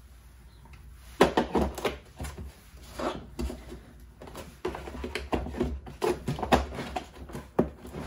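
Needle-nose pliers being set into the moulded slot of a hard plastic tool case: a series of irregular clicks and knocks of metal tool against plastic as the case is handled.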